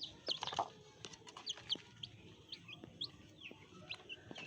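Several chicks peeping: many short high peeps, each falling in pitch, overlapping, with a few light clicks and knocks among them.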